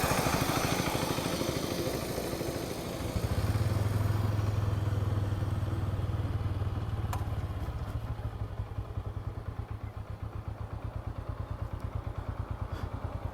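Bajaj Pulsar N125's single-cylinder engine running as the bike is ridden, its steady hum easing off in the second half into a slower, even pulse of firing strokes as the bike slows and idles. A single sharp click comes about seven seconds in.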